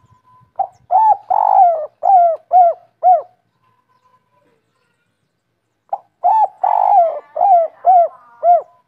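Spotted dove cooing in two phrases. Each phrase is a short note or two, then a long drawn-out coo, then three short coos at the end, the 'kuk 3' pattern of the song.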